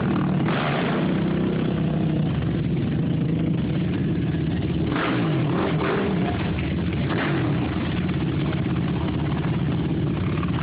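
ATV engine running steadily at idle.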